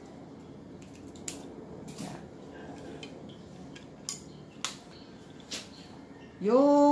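Light clicks and clinks of wire ends and crimp terminal lugs being handled and fitted together while wiring. Near the end comes a loud, short pitched call that rises and then holds for under a second.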